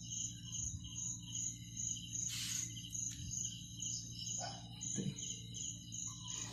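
Crickets chirping in an even rhythm, about two chirps a second, over a steady low hum, with a brief rustle a couple of seconds in.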